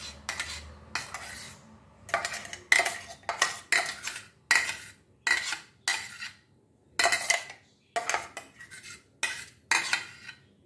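A steel spoon scraping the inside of a stainless-steel mixer-grinder jar, scooping out thick hibiscus-leaf paste in short strokes about one and a half a second.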